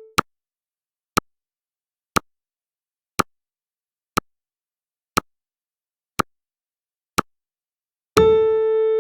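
Countdown timer sound effect: a sharp electronic tick once a second, eight in a row. Near the end a sustained electronic tone with overtones sounds, recurring every ten seconds.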